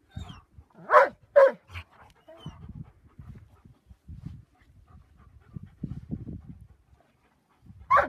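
Giant schnauzer giving two short, loud whimpers about a second in, then a fainter one. Soft, uneven low scuffling follows, as the dogs dig and move about in the sand.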